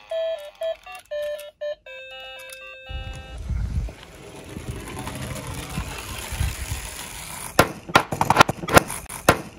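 A short electronic jingle, then a die-cast toy minibus rolling down a wooden slope with a steady low rumble. Near the end it clatters with a quick run of sharp knocks as it tumbles over on the board.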